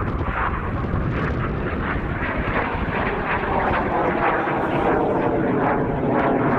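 Aermacchi MB-339 jet trainer's turbojet engine heard from the ground as the aircraft climbs steeply: a steady rushing jet noise that grows a little louder near the end.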